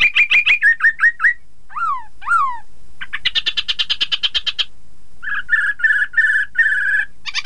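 Black-throated laughingthrush (poksay Hongkong) singing a loud, varied song: a fast run of clear notes, two downward-slurred whistles, a quick rattling trill, then a series of five short whistled notes near the end.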